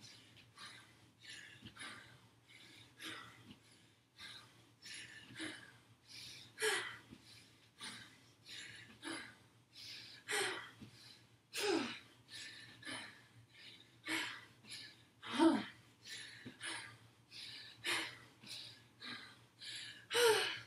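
A woman breathing hard from exertion during a high-intensity dumbbell workout: quick, noisy exhales about once a second, several of them with a short falling voiced groan.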